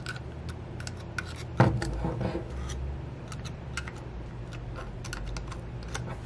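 Light metallic clicks and scrapes of a 90-degree seal pick working inside an aluminium automatic-transmission valve body to pull out the converter valve, with a sharper click about one and a half seconds in. A steady low hum runs underneath.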